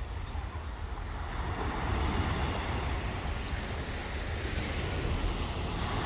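Small waves washing onto a sandy beach, with a swell of surf about two seconds in and another near the end, over a steady low rumble of wind on the microphone.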